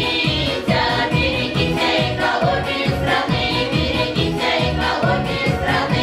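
Women's folk vocal ensemble singing a Russian folk song together in chorus, over music with a steady beat.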